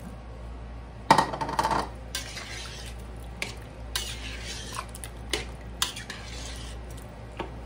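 Chopped raw potatoes tumble from a bowl into a stainless steel pot of broth with a splashing clatter about a second in. A metal spoon then stirs them, clinking now and then against the side of the pot.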